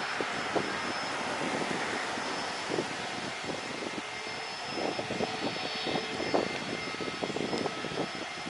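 Aircraft jet engine running with a steady rush and a thin high whine, while strong wind buffets the microphone in irregular low thumps.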